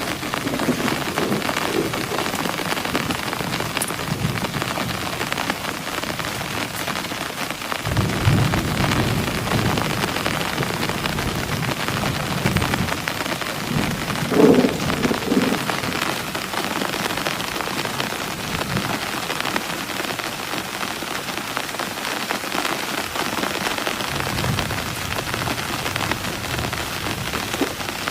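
Steady rain falling, with a few louder low thumps about a third of the way in and again about halfway through.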